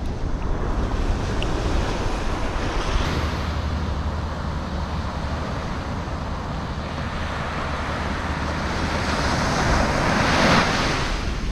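Ocean surf breaking and washing up a sand beach, with wind buffeting the microphone. A wave swells louder about ten seconds in, then eases.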